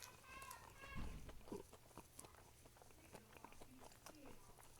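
Faint chewing and biting: soft mouth clicks and smacks of a person eating, with one low thump about a second in.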